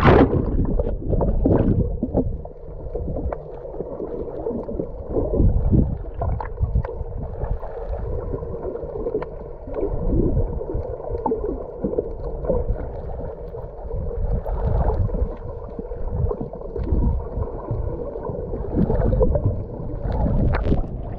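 Water sloshing and splashing around a small boat at sea, with irregular surges over a faint steady motor hum.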